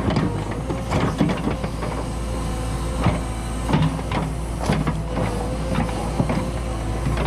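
Cat 314E excavator's diesel engine running steadily with a hydraulic whine. Irregular knocks and clunks from the bucket working packed mud are heard several times.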